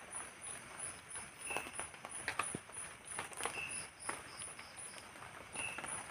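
Night insects chirping in a very high, steady pulse about three times a second, with a few shorter chirps. Scattered drips and taps of light drizzle fall on the tarp and the leaves.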